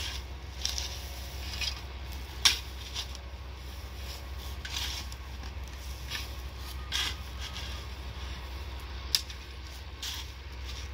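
A long-handled hoe chopping and scraping into dry soil and dry grass in irregular strokes a second or two apart, the sharpest strike about two and a half seconds in.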